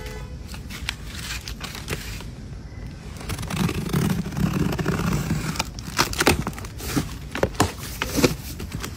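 Scissors blade slitting the packing tape along the seam of a cardboard box: scraping and tearing of tape, with sharp clicks and knocks of cardboard being handled. A low rumble joins for a couple of seconds midway.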